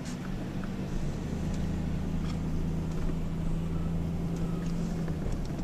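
Vehicle engine running at a steady pitch with road noise, heard from inside a car as it drives. The engine hum sets in about a second in and fades shortly before the end.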